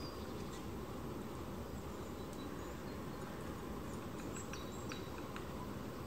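Small songbirds giving faint, high, thin calls and short ticks, scattered and more frequent in the second half, over a steady low outdoor rumble.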